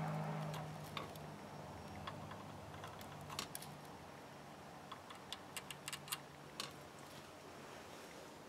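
Faint, scattered small clicks and taps of hand soldering on a circuit board, as the soldering iron and solder wire touch the stepper-motor pins. A low hum drops away about half a second in.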